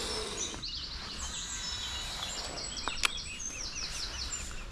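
Songbirds calling and singing, several overlapping high chirps and falling phrases, with a fast run of repeated calls in the second half. A single sharp click sounds about three seconds in.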